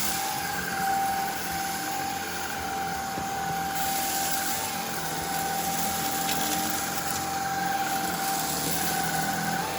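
Shark IZ320UK cordless stick vacuum running on its default medium power setting: a steady motor whine at one pitch over a rush of air, swelling slightly now and then.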